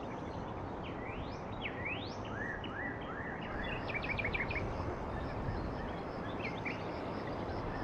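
Birds chirping over a steady noisy outdoor background, with quick upward-sweeping whistled notes in the first couple of seconds and a short rapid run of notes about four seconds in.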